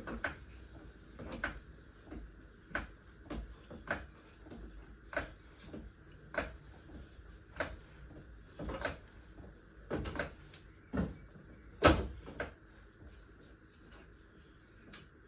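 Hydraulic trolley jack being pumped to lift the car: a short clunk with each stroke of the handle, about a dozen strokes a little over a second apart. The loudest clunk comes near the end, then the strokes stop.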